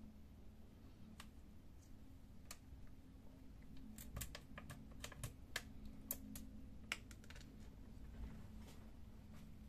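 Faint, scattered clicks and light taps of plastic and metal parts on a Lexmark laser-printer fuser being handled as a spring is fitted, with a quicker run of clicks in the middle, over a low steady hum.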